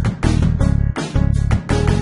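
Background music with a heavy, pulsing bass beat.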